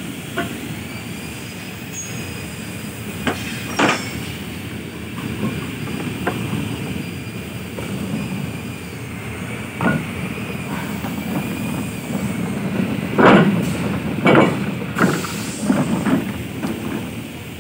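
Steady machine-shop noise with a faint wavering whine, broken by several sharp knocks and rubs from a phone being handled close against a jacket.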